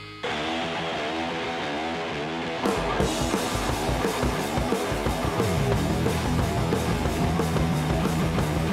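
Rock music with electric guitar, starting abruptly about a quarter second in; a heavier, steady beat comes in about three seconds in.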